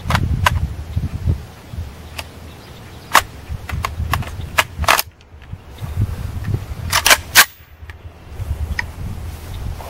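Norinco AK-47 rifle in 7.62x39mm firing single shots at irregular intervals, with a quick cluster of three or four shots about seven seconds in.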